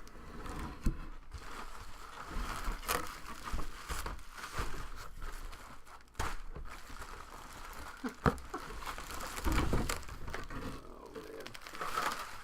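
Packaging crinkling and rustling as a trading-card box is handled and opened, with scattered light knocks.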